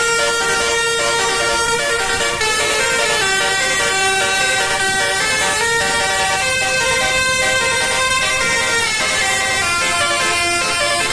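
Basuri multi-tone bus horn (telolet horn) playing a melody: loud, sustained notes that step from pitch to pitch without a break.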